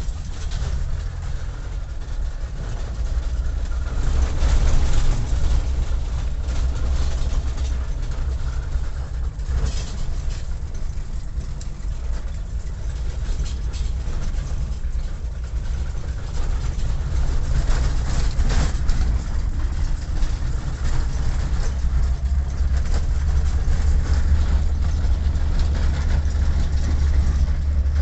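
Low, steady rumble of a moving vehicle: engine and road noise, with no clear changes in pitch.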